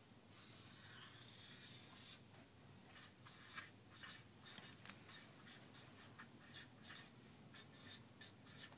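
Faint scratching of a pen writing or drawing, in short irregular strokes, with one longer continuous stroke in the first two seconds.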